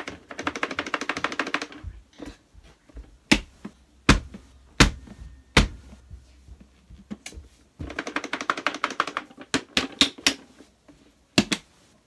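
Dirt and grit rattling out of a Hoover bagless vacuum's plastic dust canister as it is emptied, in two quick clattering runs, one at the start and one about eight seconds in. Between and after them come single sharp knocks as the canister is tapped to knock the remaining debris loose.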